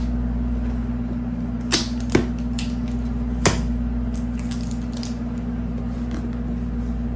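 A cardboard product box being opened by hand: three sharp clicks and snaps of the packaging, two close together about two seconds in and one more a little later. A steady low hum lies underneath.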